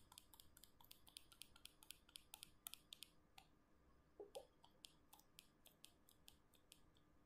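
Faint clicks of a Jio Phone's keypad buttons being pressed, several a second for about the first three seconds, then sparser.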